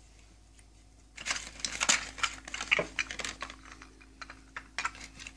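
Small plastic toy furniture and its clear plastic packaging being handled. After about a second of quiet there is a run of light clicks and clatter mixed with crinkling.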